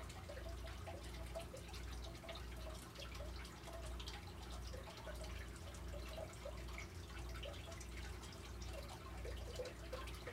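Faint dripping water over a low, pulsing hum.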